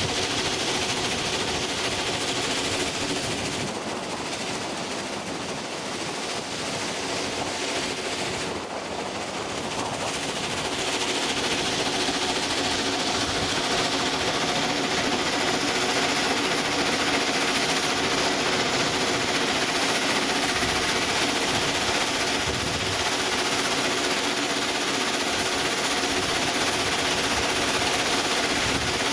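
Small locomotive running along the line, heard from its footplate: a steady mechanical rattle and rumble, a little quieter for a few seconds in the first third.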